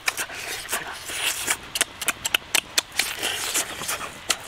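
Close-miked eating: wet chewing, lip-smacking and crunching as a mouthful of roasted meat is bitten and chewed, a string of irregular sharp clicks.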